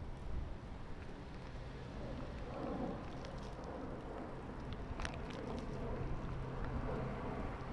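Wind rumbling on the microphone and tyre noise from a moving bicycle, with a sharp click about five seconds in.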